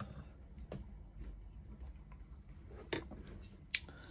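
A few light clicks and knocks from hands handling a partly dismantled brushless servo motor and tools on a wooden board, the two sharpest about three and nearly four seconds in.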